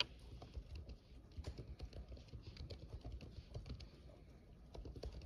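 Typing on laptop keyboards: scattered, quiet, irregular key clicks over a low room rumble.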